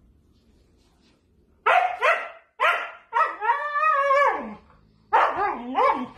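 Siberian husky barking: after a quiet second and a half, three short sharp barks, then one drawn-out wavering call that falls in pitch at its end, then three more barks near the end.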